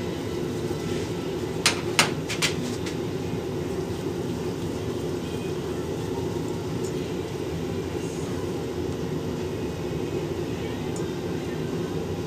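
A steady low background hum, with a few sharp metallic clicks about two seconds in as a thin tool picks at the oil hole of a lathe cone pulley.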